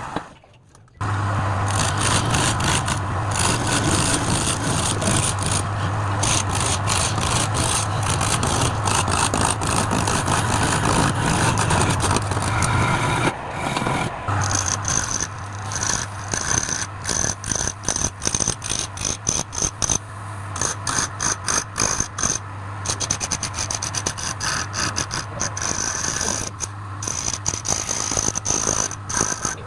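Wood lathe motor running with a steady hum while a turning tool scrapes and cuts the spinning workpiece, in a rapid, uneven chatter of tool contact.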